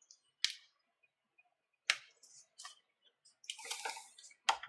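Several sharp clicks and taps of small objects being handled on a workbench, about four in all, with a brief rustling scrape between the third and fourth.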